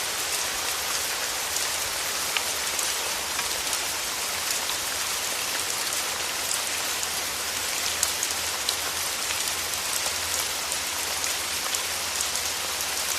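Steady rain falling, a dense even hiss with many sharp drop ticks.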